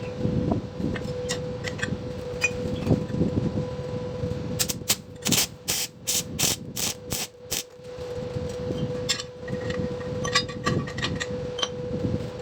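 Metalworking by hand: scattered light clinks and knocks of metal parts over a steady hum, with a run of about ten quick, evenly spaced strokes in the middle, roughly three a second.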